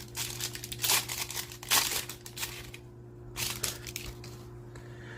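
Wrapper of a 1990 Fleer football card pack being torn open and crinkled by hand: a run of crackles that thins out after about two and a half seconds.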